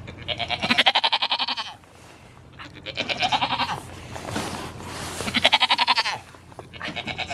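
A goat bleating close by: three long, wavering bleats about a second each, with a fourth starting near the end.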